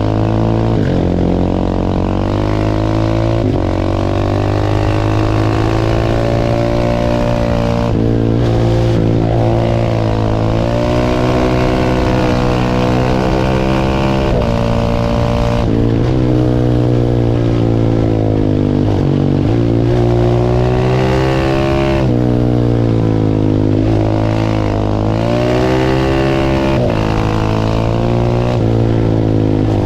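Single-cylinder 690 cc supermoto motorcycle engine under way: the engine note repeatedly climbs under throttle and drops off sharply, over and over, as the bike accelerates and changes gears or rolls off.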